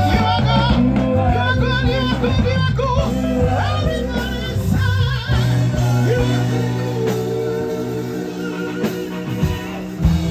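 Live gospel worship music: voices singing with vibrato over a band with steady bass notes, the sound slowly falling away near the end.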